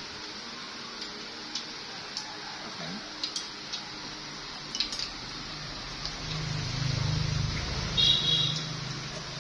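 Scattered light clicks of chopsticks against plates and bowls while people eat. A low hum swells from about six seconds in and fades near the end, with a brief high chirp about eight seconds in.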